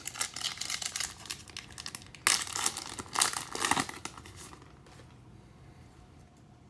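A trading card pack's foil wrapper crinkling and tearing as it is ripped open. It crackles, gets a sudden sharper burst a little past two seconds in, and stops after about four and a half seconds.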